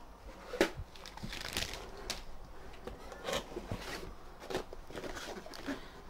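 Cardboard packaging being handled: scattered light knocks, scrapes and rustles as boxed parts are moved about and lifted out of a cardboard shipping carton, with one sharper knock about half a second in.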